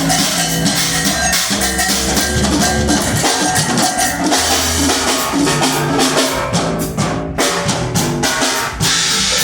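Live band playing, with the drum kit's bass drum and snare to the fore over pitched bass notes; the high end drops out briefly about seven seconds in, broken by a few drum hits.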